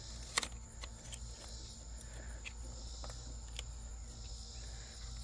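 Crickets chirping steadily, with a few light clicks, the clearest about half a second in.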